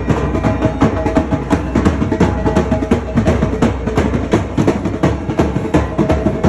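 Music of fast, steady drumming, dense even beats with a held tone sounding over them at times.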